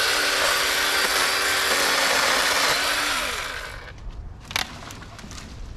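Cordless battery chainsaw running at full speed and cutting through downed tree branches. Its motor pitch dips under load, then the saw is released and winds down about three and a half seconds in. A few sharp clicks follow.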